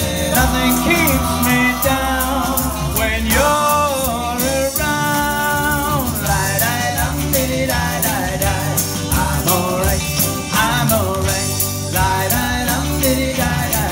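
A man singing long, bending held notes into a microphone over music with a steady drum beat.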